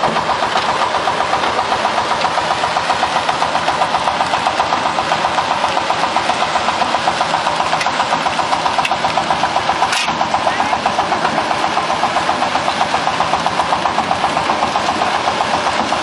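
Concrete mixer running, its drum turning, with a steady mechanical drone that pulses fast and evenly.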